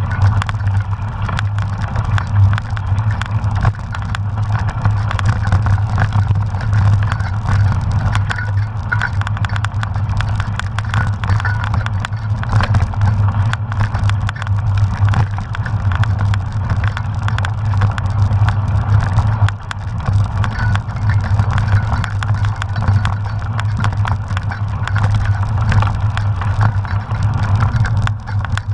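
Mountain bike ridden fast over a rough, muddy dirt trail, heard from a camera riding along: a steady rumble of tyres and rushing air with frequent rattles and knocks from the bumps.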